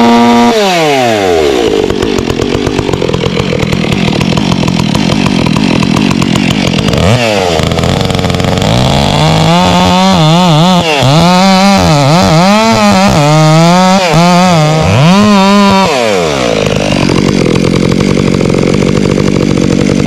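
Two-stroke Stihl chainsaw cutting a notch into an oak trunk. The engine note drops sharply as the chain bites into the wood just after the start, then runs under load. Through the middle the revs rise and fall repeatedly as the cut is worked.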